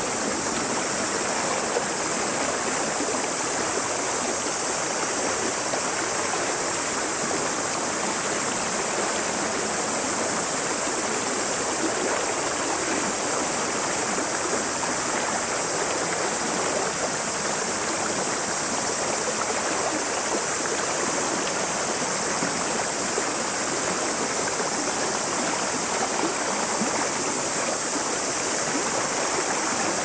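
Shallow river rushing over a rocky riffle, a steady even babble of water. Over it, a constant high-pitched drone of summer cicadas.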